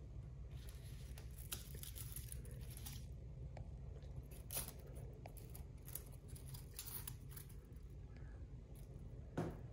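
Faint rustling and scraping of close handling, with a few small clicks, over a low steady hum.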